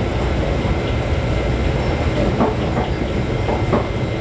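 Inside a diesel light-rail railcar under way: a steady low rumble of engine and wheels on the track, with a cluster of short knocks from the wheels over rail joints in the second half.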